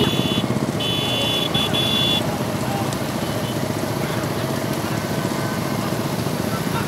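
A pack of motorcycles running together in a steady engine din. Horns beep several times in about the first two seconds.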